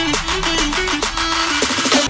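Music: a pop track with a quick stepping melody over a steady beat.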